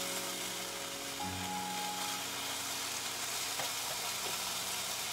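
Ground beef sizzling in a hot cast-iron skillet as it is stirred with a slotted spatula, a steady frying hiss. Soft background music with long held notes plays over it.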